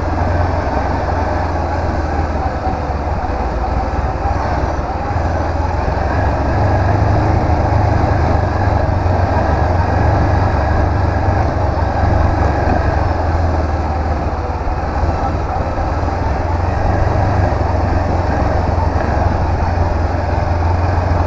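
Honda CB 500X's parallel-twin engine running steadily under way, mixed with a deep, steady rumble of wind and road noise.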